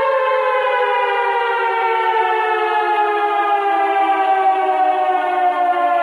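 Outdoor tornado warning siren sounding during a test, heard from inside a house: two tones sounding together that slide steadily down in pitch throughout.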